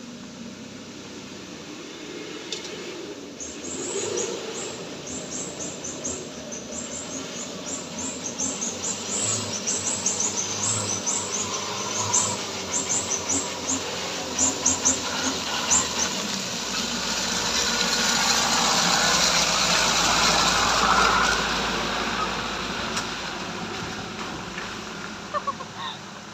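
Birds chirping rapidly, then a motor vehicle approaching and passing, its noise swelling to a peak about twenty seconds in and fading away.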